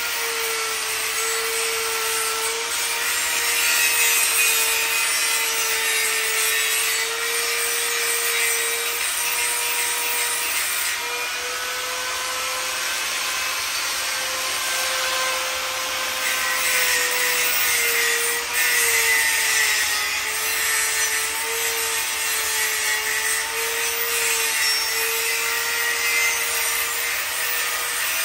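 Angle grinder running steadily as it grinds down a large, lumpy weld bead on a motorcycle sissy bar: a held motor whine over a grinding hiss, its pitch wavering slightly as he works.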